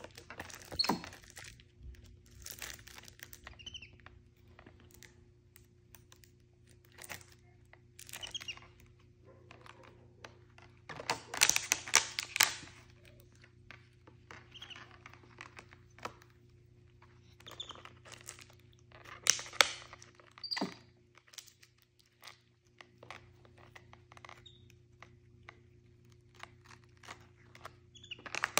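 Crinkling and crunching of a crumpled clear plastic bottle handled by a capuchin monkey, in short irregular bursts with quiet gaps, loudest in a cluster a little past the middle and again briefly later on.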